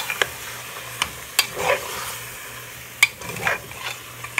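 A metal spoon stirs chicken, tomato and pepper in a pressure cooker pot: several sharp clinks of the spoon against the pot's metal wall, with wet squelching, over a steady sizzle of the mixture sautéing.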